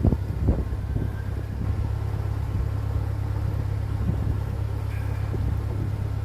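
Narrowboat's engine running steadily under way, a low even hum, with a few brief gusts of wind on the microphone near the start.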